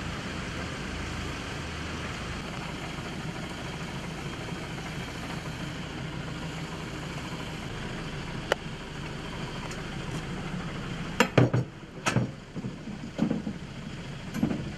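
An armoured police vehicle's engine idling steadily. There is one sharp click a little past halfway, then a cluster of heavy thuds and knocks over the last few seconds as officers climb into the vehicle.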